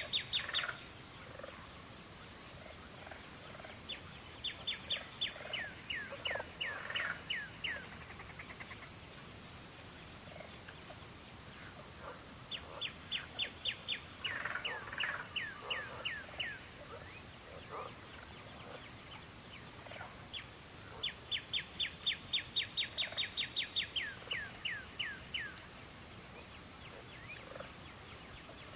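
A chorus of crickets chirping as one steady, fast-pulsing trill at dusk. Over it a bird sings four times, each song a quick run of eight to ten descending whistled notes lasting a few seconds.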